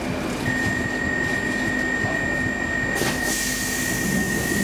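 Door-closing warning on a Stockholm Metro C15 train standing at the platform: a steady high beep held for about four seconds. A hiss of air starts about three seconds in, and the doors knock shut near the end, over the train's steady hum.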